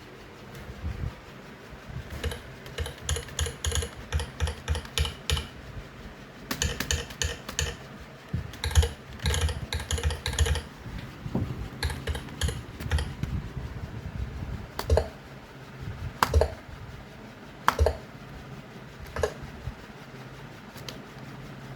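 Keys typed on a computer keyboard: quick runs of clicking keystrokes, then single, heavier key presses about every second and a half, each with a short low ring.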